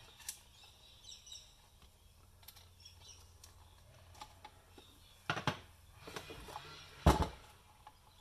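Small clicks and a faint squeak as plastic coffee-grinder parts are handled, with two sharper knocks about five and seven seconds in, the second the loudest.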